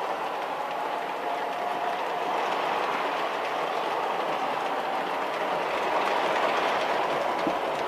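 MTH model R-12/R-17 subway train running on its track: a steady rail rumble with clickety-clack and a faint steady whine.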